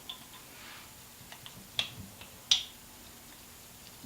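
Metal parts of a transfer case selector fork assembly clicking as a washer is worked free by hand: a few faint ticks, then two sharp clicks under a second apart around the middle.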